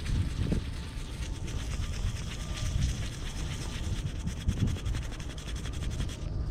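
Close, rapid scratching and rubbing as a small dug-up metal pin is handled and rubbed to clear the dirt off it, with a low wind rumble on the microphone.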